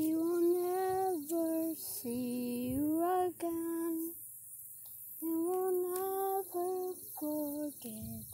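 A girl singing a slow, wordless tune in long held notes that slide up and down, with a pause about halfway through.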